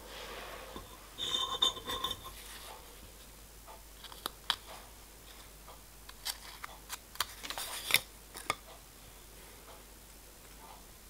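Small steel lifting links and bronze bushes handled on a workbench while they are glued with Loctite and the bushes pushed in by hand: a short ringing metallic clink about a second and a half in, then a scatter of light, sharp clicks and taps.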